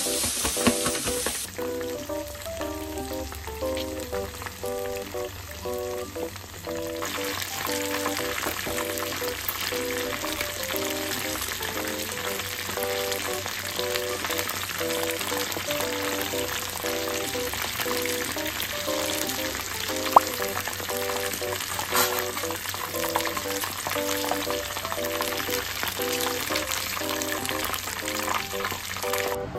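Karaage, chicken pieces coated in flour and potato starch, deep-frying in a pan of oil: a dense, steady sizzle that fills in from about seven seconds in, with a sharp click about twenty seconds in. In the first second and a half, a plastic bag is shaken to coat the chicken. Light background music plays throughout.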